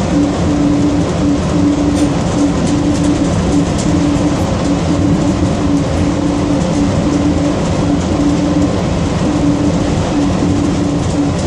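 Steady running noise inside an airport people-mover train car under way, with a low hum that keeps cutting in and out.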